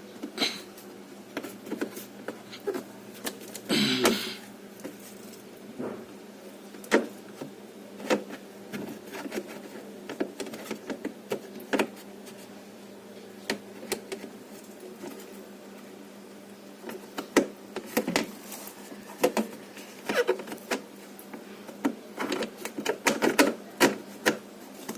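Scattered clicks and knocks of plastic refrigerator parts being handled and snapped into place, over a steady low hum. A short hissy rustle about four seconds in.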